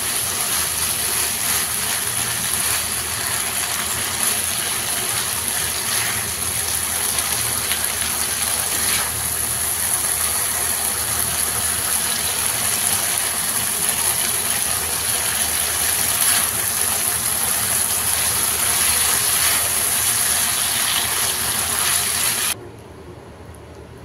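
Pork belly pieces with onion and soy sauce sizzling hard in a frying pan over high heat as a silicone spatula stirs and tosses them. The sizzle cuts off abruptly about 22 seconds in, leaving a much quieter hiss.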